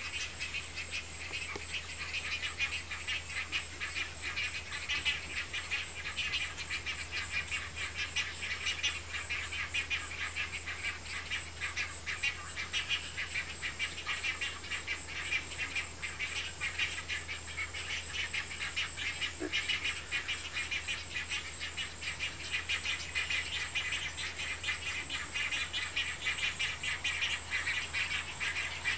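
A dense, steady chorus of rapid, high-pitched pulsing animal calls, running without a break.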